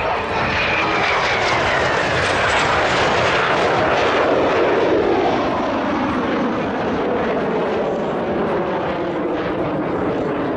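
Dassault/Dornier Alpha Jet with twin Larzac turbofans passing and pulling up into a climb: a loud, steady rush of jet noise with an engine whine that falls steadily in pitch over several seconds as the jet goes by.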